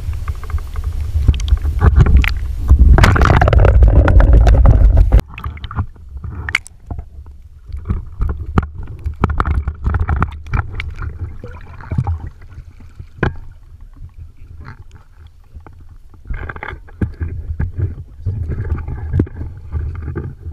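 Underwater noise through a submerged camera: a loud, muffled rumble of moving water that cuts off suddenly about five seconds in, followed by quieter water movement with scattered sharp clicks and knocks.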